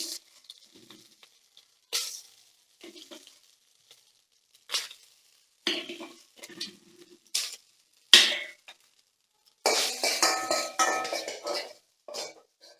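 A metal spoon knocking and scraping in a cooking pan as cooked rice is mixed in. There are separate knocks at first, then a quick run of clinks and scrapes with a ringing metallic tone near the end.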